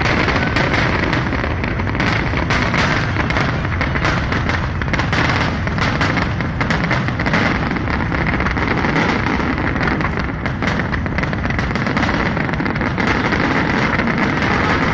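Fireworks display: a dense, unbroken run of bangs from bursting shells, many overlapping each second.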